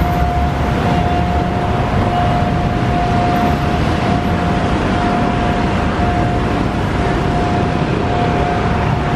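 Dense road traffic of cars and motorbikes rumbling across a railway level crossing. Over it, a steady high warning tone sounds without a break, matching the crossing signals that are flashing red.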